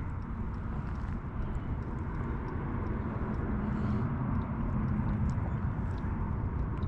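Steady low outdoor rumble with faint scattered ticks.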